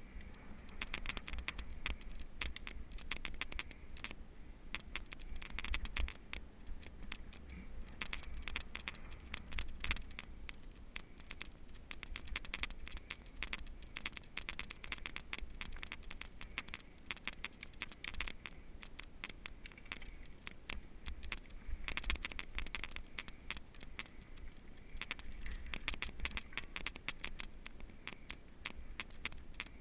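Mountain bike rolling along a dirt trail: a continuous patter of small clicks and rattles from the tyres and bike over the ground, with a low wind rumble on the microphone.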